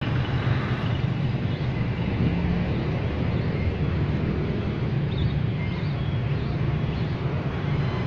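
Steady low rumble of background noise, with a few faint short high tones now and then.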